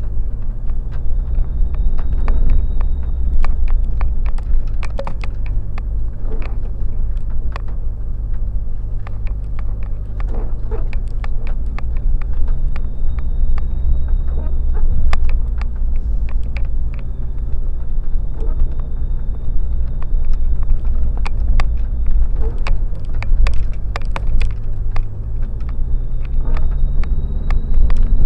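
Off-road car's engine running at low, fairly steady revs while driving a rough trail, with frequent sharp clicks and knocks throughout.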